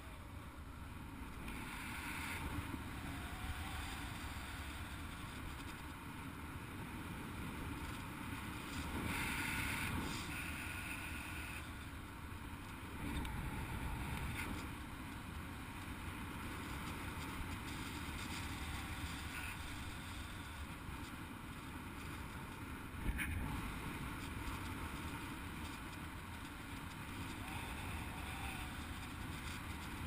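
Airflow buffeting the microphone of a paraglider pilot's harness-mounted camera in flight: a steady low rumble that swells and eases, with one short sharp knock about three-quarters of the way through.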